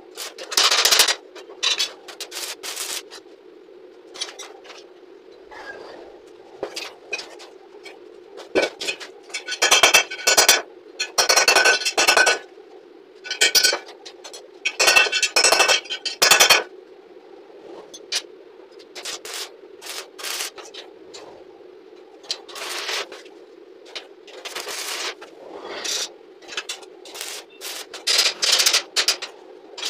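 Steel scroll pieces and flat bar clinking and scraping against the welded grill frame on a concrete floor as they are set in place, with clusters of rapid clattering, over a steady hum. A brief tack weld crackles near the end.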